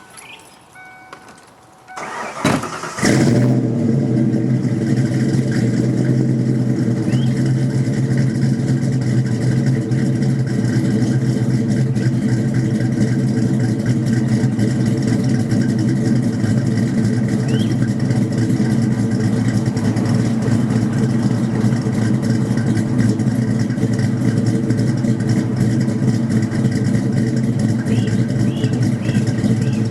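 1994 Ford Mustang 5.0's 302 V8, breathing through an off-road H-pipe and Flowmaster mufflers, cranks briefly and starts about three seconds in, then idles steadily and loudly.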